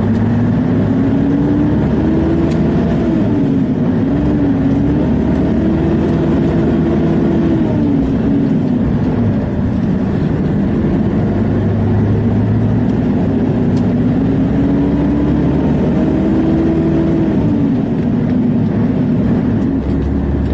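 Scania 144L truck's V8 diesel engine pulling away under power, heard from inside the cab. Its note climbs and drops back several times as the driver shifts up through the gears, with a steady low drone underneath.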